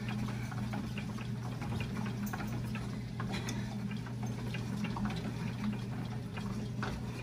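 Elliptical trainer running under a person's stride: a steady low hum from the machine with scattered light clicks and ticks from its moving parts.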